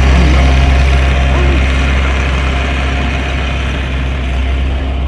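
An engine running steadily at an even speed, a deep continuous hum that eases slightly in loudness.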